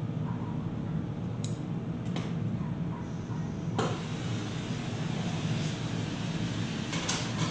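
Steady low roar of a glassblowing gas burner, with a few sharp clicks and taps scattered through it.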